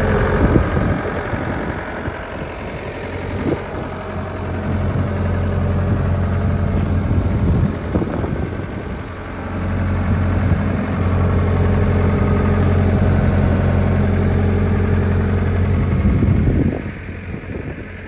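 Takeuchi TB175 excavator's diesel engine running steadily, getting louder for a stretch in the middle and dropping back near the end.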